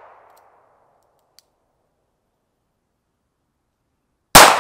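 The echo of a .38 Special revolver shot dies away in the first half-second, followed by a faint click and near silence. Near the end a single loud gunshot cracks and rings out.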